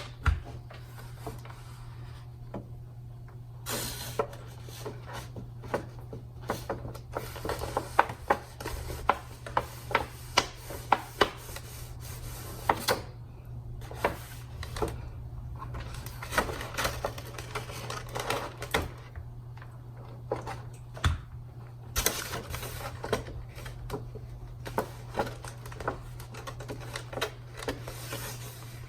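Stiff cardstock paper petals being handled and pressed into place: irregular crinkling, clicks and taps, over a steady low electrical hum.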